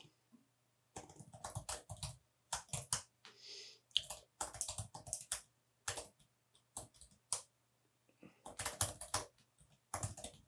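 Computer keyboard typing in short bursts of rapid keystrokes with brief pauses between them.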